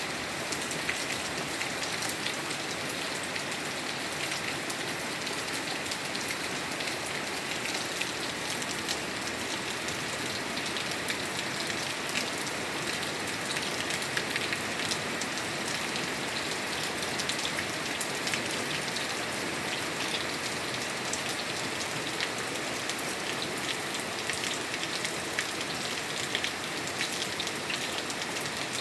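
Steady rain falling and pattering on surfaces, an even hiss dotted with many small drop ticks.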